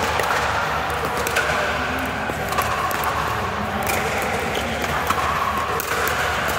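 Pickleball paddles striking a hard plastic ball: several sharp pops at irregular intervals over steady background noise.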